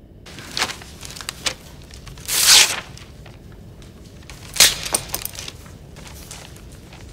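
Paper test sheets rustling and crinkling, with pencils tapping and scratching on them: a few sharp clicks, one longer, louder rustle about two and a half seconds in, and another sharp rustle near five seconds.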